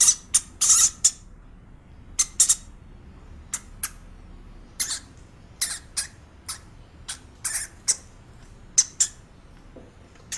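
A small animal giving many short, high-pitched squeaks or chirps at irregular intervals.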